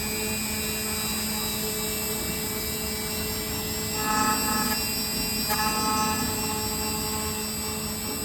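A motor running steadily with a constant hum, briefly louder twice in the middle.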